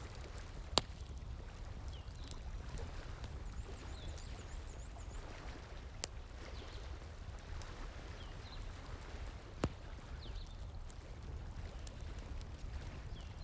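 Wood fire crackling, with three sharp pops standing out, over the steady rush of a flowing stream.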